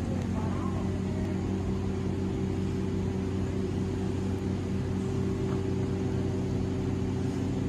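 An engine running steadily with a low drone that holds an even pitch.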